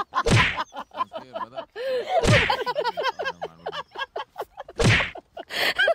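Three heavy thuds about two and a half seconds apart, with a voice talking between them.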